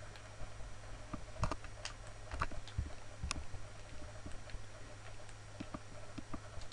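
Computer mouse clicking irregularly, a few sharper clicks in the first half, over a low steady hum.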